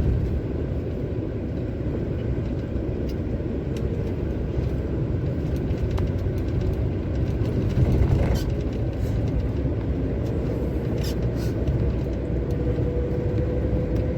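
Heavy truck heard from inside the cab while driving: a steady low engine and drivetrain drone mixed with road noise. A thin whine slowly rises in pitch over the last few seconds.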